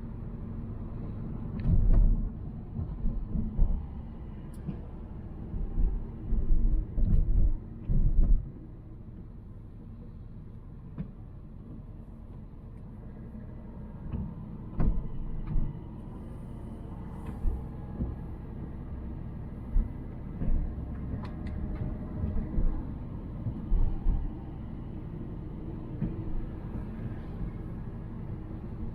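Volvo C70 being driven: a steady low rumble of engine and road noise, broken by irregular low thumps, most of them in the first eight seconds.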